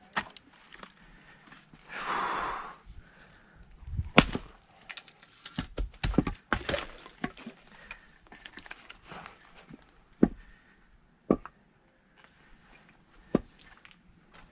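Firewood being split with an axe: sharp knocks and cracks of wood at irregular intervals, the loudest about four seconds in, with a quick run of knocks around six seconds in. There is a short breathy noise about two seconds in.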